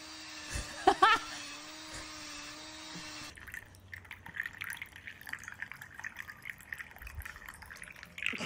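Cordless drill motor running at a steady speed while it bores into a block of cheese, with two brief louder sounds about a second in. It stops suddenly about three seconds in, and faint wet dripping sounds follow.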